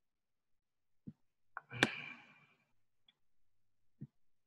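A few faint, sparse clicks from a computer's pointer controls while dragging items on screen, with one sharper click about two seconds in followed by a brief soft rush of noise.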